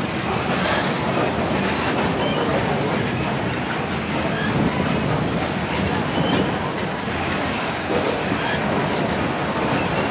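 Freight train of steel covered hopper cars rolling past close by: a steady rumble and rattle of wheels on the rails.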